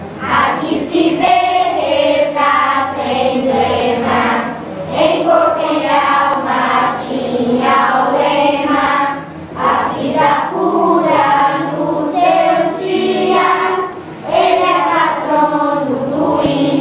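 A choir with children's voices singing a song, with brief pauses between phrases.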